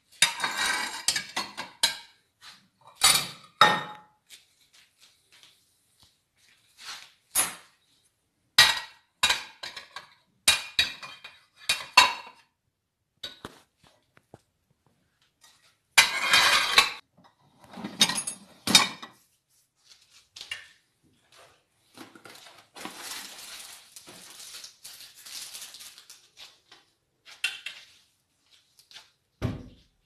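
Ceramic plates clinking and clattering as they are slotted into a mini dishwasher's wire rack, in a string of separate knocks with a longer rattling stretch a little past the middle.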